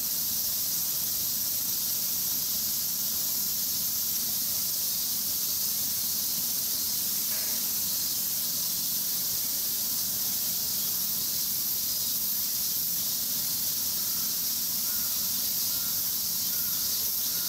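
Steady, high-pitched insect chorus outdoors, with a few faint short chirps near the end.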